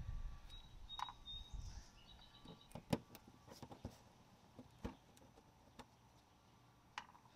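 Plastic push clips in a car's fender liner being pried out with a flathead screwdriver: scattered sharp clicks and snaps, the loudest about three seconds in, with a few brief high squeaks in the first two seconds.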